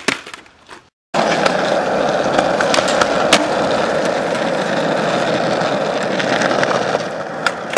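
Skateboard wheels rolling over rough asphalt, a steady rumble that starts after a brief silence about a second in, with a few light clacks near the end.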